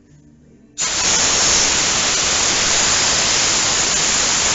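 Compressed air from an air compressor's blow gun, hissing loudly as it blasts trapped water out of a car's pinch seams; it cuts in abruptly about a second in and holds steady.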